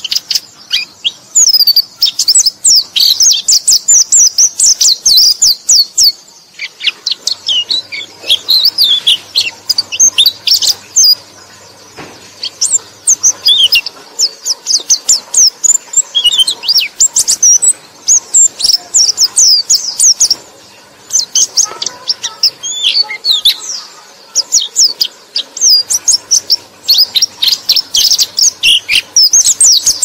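Pleci (white-eye) song: rapid, high twittering in long phrases separated by brief pauses.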